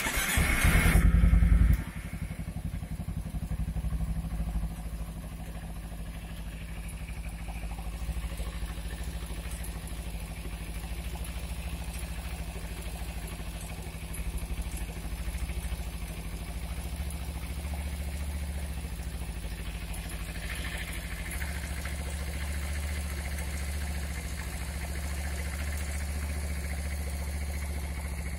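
Motorcycle engine running, louder for the first two seconds and then idling steadily, with a ticking rattle that the owner puts down to a slack cam chain.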